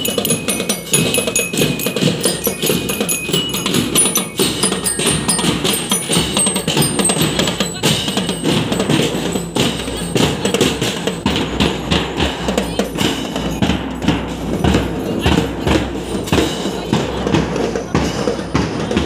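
Parade percussion music: drums and other percussion beating a busy, rapid rhythm, with high ringing tones over it in the first few seconds.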